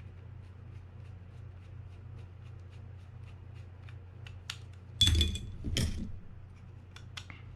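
Small metal clicks of a screwdriver and reel parts being handled as a bail-arm screw is turned in on a spinning reel. About five seconds in come two louder, short handling noises, a second apart.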